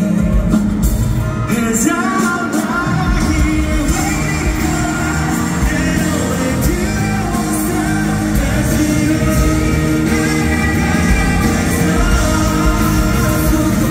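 K-pop boy group singing live into handheld microphones over a pop backing track, played loud through the arena sound system.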